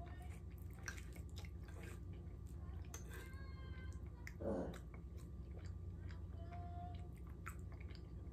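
Faint chewing with light clicks of a metal fork against a plate of spaghetti, over a low steady room hum. A short hum from the eater comes about halfway through.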